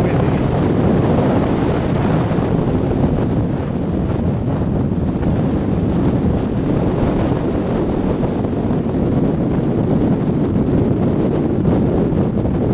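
Strong wind buffeting the microphone: a steady, loud rumbling roar with no pauses.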